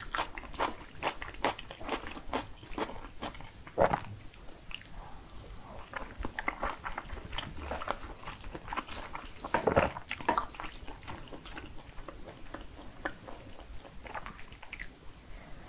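Close-miked eating of jajangmyeon noodles in black bean sauce: continuous wet chewing and mouth clicks, with two louder bursts about four and ten seconds in.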